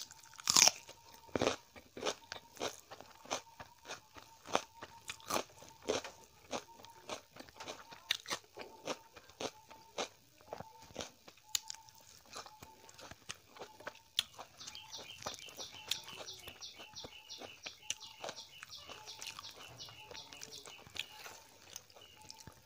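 Close-miked crunching and chewing of raw red onion: a few loud crisp bites in the first couple of seconds, then steady wet chewing crunches.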